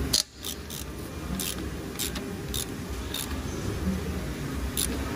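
Socket ratchet clicking in short bursts, roughly every half second to second, as it is worked on an exhaust bolt at the downpipe-to-flexi-pipe joint, over a steady low hum.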